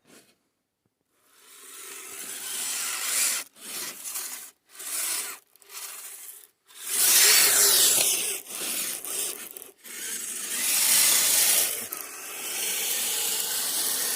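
RC scale crawler with a Traxxas Titan 380 brushed motor driving in bursts, its tyres churning and scraping through snow as it claws up a snow drift, with short stops between pushes.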